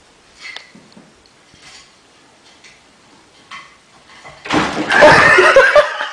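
A few faint small knocks, then loud human laughter breaks out suddenly about four and a half seconds in and goes on for about a second and a half.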